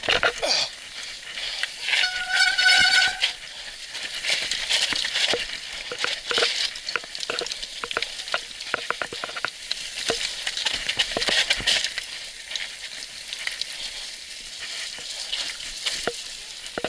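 Electric mountain bike rolling fast down a rough dirt-and-gravel trail: tyres crunching and the bike and handlebar-mounted camera rattling over bumps. About two seconds in there is a brief high-pitched squeal lasting about a second.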